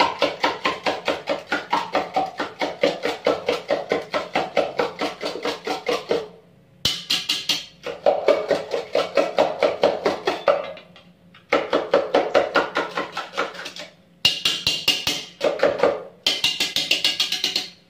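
Eggs being beaten by hand with a utensil in a plastic bowl: rapid, evenly spaced clicking strokes, about five a second, in runs broken by a few short pauses.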